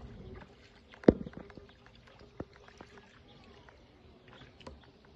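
A single sharp knock about a second in, followed by a few scattered lighter clicks and taps over faint background sound.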